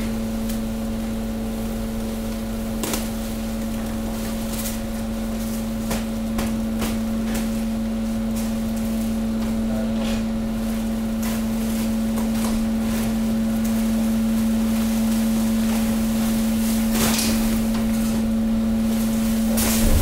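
Hydraulic press working at 190 bar while crushing industrial waste: a steady pump hum with scattered sharp cracks and snaps from the load breaking up. The hum cuts off near the end.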